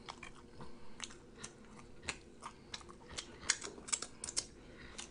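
Close-miked chewing of T-bone steak fat: irregular wet mouth clicks and smacks, several close together near the end.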